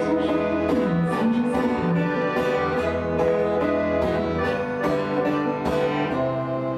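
Live acoustic music: an accordion holding sustained chords under a plucked acoustic string instrument picking steadily. The accordion chord changes about six seconds in.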